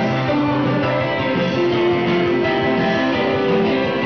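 Music with guitar, playing loudly and steadily.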